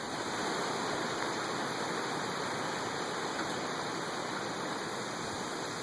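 Hurricane rain and wind making a steady rushing hiss, the rain pelting rather than pouring.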